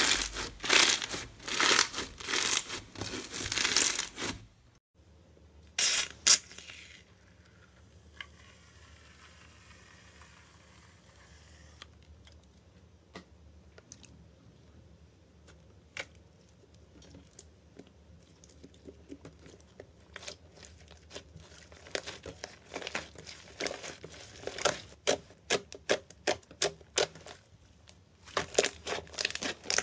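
Bead-filled crunchy slime squeezed and kneaded by hand, a dense run of crackling and popping that stops about four and a half seconds in. After that it goes quiet, with a faint hiss and scattered soft pops and clicks of slime being pressed and poked, growing more frequent toward the end.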